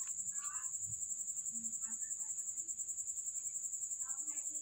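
High-pitched insect trilling, steady with a fast, even pulse, in the background.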